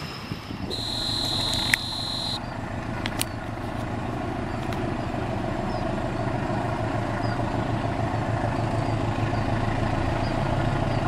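A high steady tone for nearly two seconds about a second in, then a diesel locomotive's engine running steadily with a low drone that grows slightly louder.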